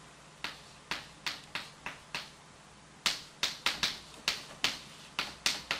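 Chalk clicking and tapping against a blackboard while an equation is written: a quick, irregular series of sharp clicks, with a pause of under a second near the middle.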